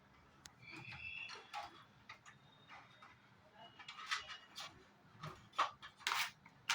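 Handling noises inside a PC case as a SATA data cable is routed to the motherboard and plugged in: scattered small clicks, taps and rattles, busier in the second half, with a couple of brief high squeaks.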